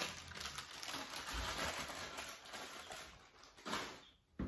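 Clear plastic zip-top bag crinkling and rustling as a plastic funnel is handled inside it, followed by a couple of light knocks near the end.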